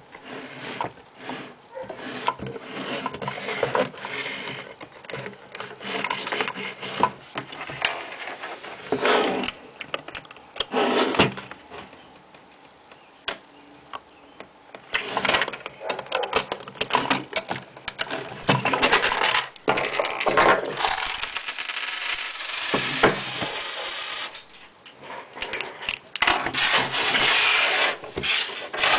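Plastic Lego bricks clicking, knocking and rubbing as a Lego safe is handled and its parts are worked open, the bricks knocking on and sliding over the table in irregular bursts, quieter for a few seconds about halfway through.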